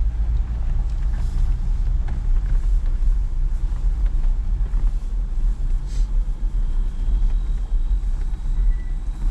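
Off-road vehicle's engine and drivetrain rumbling steadily while driving along a trail, with a few faint knocks and rattles.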